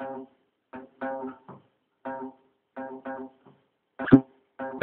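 Guitar played in short, clipped chords with pauses between them, as the intro to a song. About four seconds in comes one louder, harder stroke.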